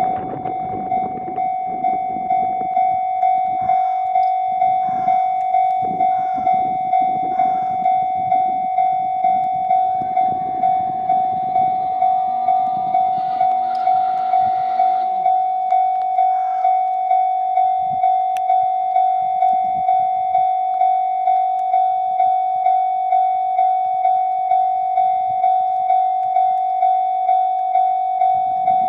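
Level-crossing warning bell ringing steadily, about one and a half strokes a second. For roughly the first fifteen seconds a JR GV-E400 series diesel-electric railcar pair runs past under it, with wheel clatter and a pitched engine hum that falls and fades about halfway through.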